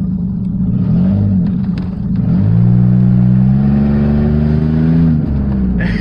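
Dodge Dakota pickup engine, breathing through a home-made ram-air intake, revved: a quick blip about a second in, then held at higher revs for a few seconds before dropping back to idle near the end. The intake has a little hiss to it.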